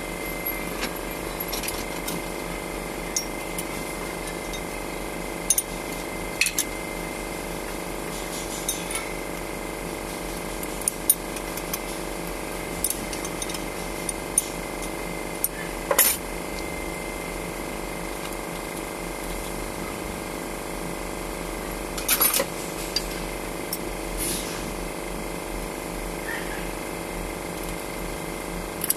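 Scattered sharp metallic clinks and taps of hand tools and fittings as a fuel injection pump is fitted to a diesel engine, some in quick clusters, over a steady background hum.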